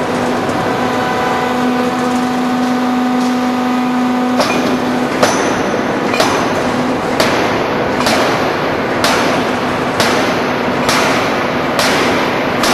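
Hydraulic free-die forging hammer: a steady mechanical hum with a few steady tones for about four seconds, then heavy ringing blows about once a second, over loud shop noise.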